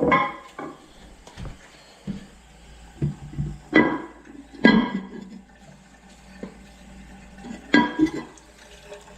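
Hard objects clinking and knocking together as toilet parts are handled. Four main strikes ring briefly: one right at the start, two close together around four to five seconds in, and one near eight seconds, with smaller knocks in between.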